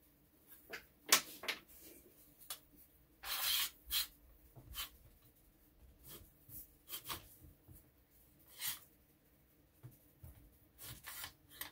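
Workshop handling noises: scattered clicks, knocks and scrapes as a DeWalt one-handed bar clamp is handled and slid along its bar on a workbench, with a short rustling scrape about three and a half seconds in.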